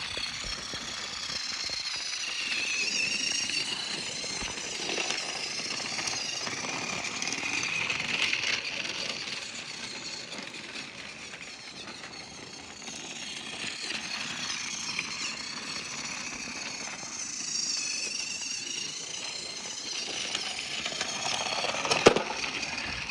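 Battery-powered Trackmaster toy train engine running along plastic track, its small electric motor and gears whirring steadily, getting louder and softer by turns. A sharp click near the end.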